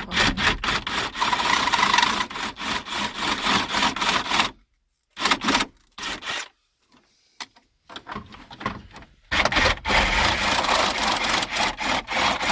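Saw cutting away the plastic dashboard trim of a 1996 Ford F-150 to enlarge the radio opening, in quick rasping strokes. The cutting stops about a third of the way in, comes back in two short bursts, then runs steadily again over the last few seconds.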